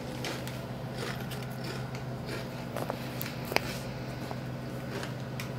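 Steady low hum with scattered faint clicks, the sharpest about three and a half seconds in.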